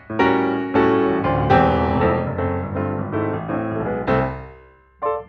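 Piano music: a string of struck chords and melody notes that dies away about four and a half seconds in, followed by one short chord near the end.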